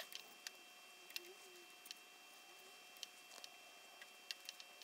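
Near silence, with faint, scattered light ticks from hand soldering of a flyback transformer's pins on a circuit board.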